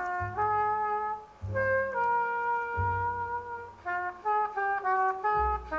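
Jazz record playing on a turntable through loudspeakers: a trumpet plays a slow melody of held notes over low bass notes.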